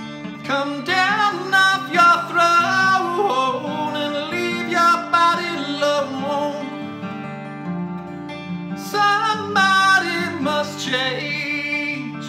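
A 1974 Guild F412 twelve-string acoustic guitar in drop D tuning, played as accompaniment, with a man singing over it. The voice comes in about half a second in, pauses about seven seconds in, and returns about nine seconds in.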